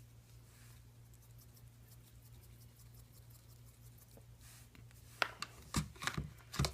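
A low steady hum, then from about five seconds in a run of sharp small clicks and taps as a glitter container is handled and glitter is shaken into the slime.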